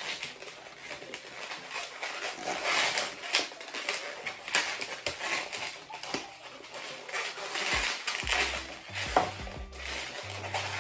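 Long red latex twisting balloon (a 160) being worked by hand into a small bow, the latex rubbing and scraping with small clicks as it is twisted.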